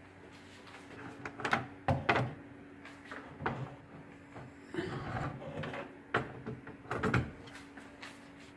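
Glass electric kettle handled on a wooden cabinet shelf: a series of irregular knocks and clunks as it is pulled out and set back on its tray, over a steady low hum.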